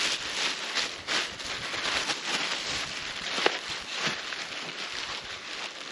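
Handling noise: irregular rustling and crinkling, with a sharp click about three and a half seconds in.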